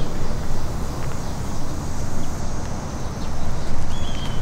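Low rumbling wind and handling noise on a handheld camera microphone while walking on asphalt, with a bird chirping once near the end.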